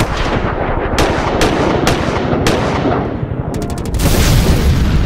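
Intro sound effects for an animated logo: a heavy low rumble with sharp gunshot-like hits every half second or so, a fast rattle of clicks, then a loud hissing surge about four seconds in.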